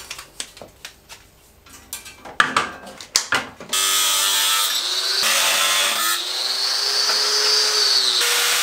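A few handling clicks and knocks, then, about 3.7 s in, an angle grinder with a cut-off disc starts cutting through flat steel bar. It is a loud, steady grinding with a whine that wavers in pitch as the disc is worked through the steel, and the sound changes abruptly a few times.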